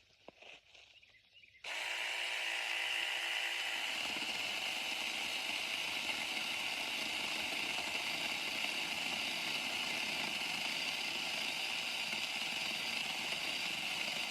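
Battery-powered Saker mini chainsaw switching on suddenly about a second and a half in and running at a steady high-pitched whine. From about four seconds in, rougher noise joins it as the chain cuts through a sapling.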